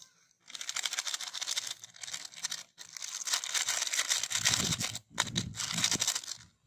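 Small plastic spice sachets crinkling and tearing as they are cut open and squeezed out, a dense crackly rustle with two short breaks.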